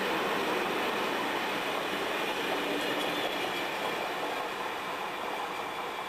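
Train of SNCB couchette coaches rolling past on the station tracks: a steady noise of wheels on rail that eases off near the end as the last coach moves away.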